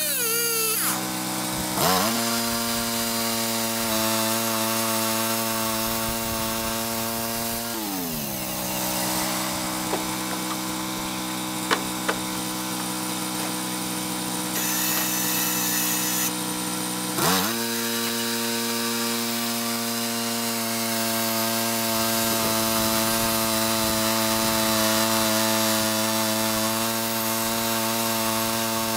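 Timber Grizz band sawmill's engine throttling up to a steady high running speed for the cut, dropping back to a lower idle about eight seconds in, then throttling up again at about seventeen seconds and holding steady. A chainsaw revs up and down briefly at the very start.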